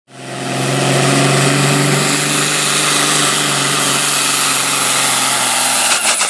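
An engine idling steadily, fading in at the start, with a change in the sound about six seconds in.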